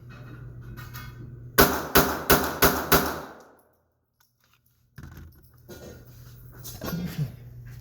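Five shots from a Glock 44 .22 LR pistol, fired in quick succession about a third of a second apart, starting about a second and a half in.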